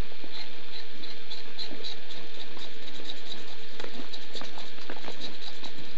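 Irregular small clicks and taps of a metal tool and hands handling a military shaped charge, over a steady hiss with a faint hum.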